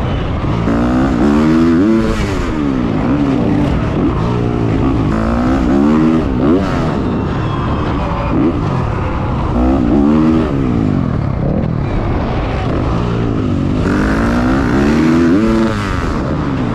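Dirt bike engine heard close up from a camera on the bike, revved up and down again and again, its pitch climbing and falling every second or two.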